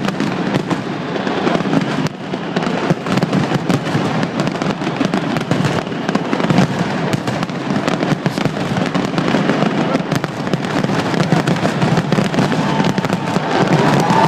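Fireworks going off in rapid succession: a continuous, dense mix of bangs and crackling.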